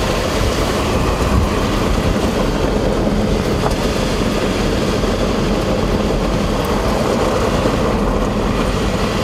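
Steady road and wind noise of a vehicle driving at speed, heard from inside the cabin.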